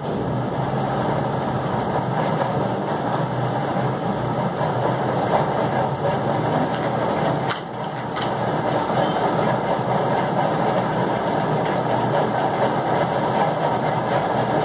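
A steady low mechanical hum, like a running motor, with no distinct strokes; it dips briefly about halfway through.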